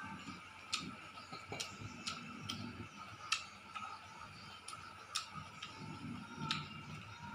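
Eating by hand with the mouth close to the microphone: irregular sharp wet clicks and smacks, several a second at most, over soft chewing.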